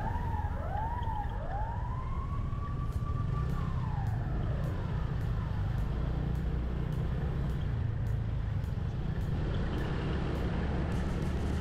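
A siren wailing up and down in pitch: a few quick rises and falls, then one long rise that holds and slowly falls away over the first five seconds or so. Beneath it runs the steady low rumble of road and wind noise from riding a motor scooter.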